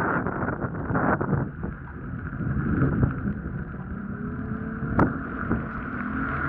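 Motorboat running steadily through floodwater, engine and water noise mixed with wind rumbling on the microphone. A single sharp click about five seconds in.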